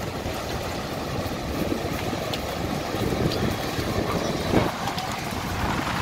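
Surf breaking on a sandy beach, with wind buffeting the microphone in a steady, uneven rush.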